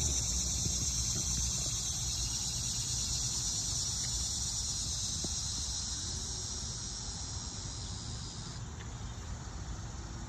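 Steady, high-pitched insect chorus of summer cicadas or katydids, easing a little near the end, over a low rumble.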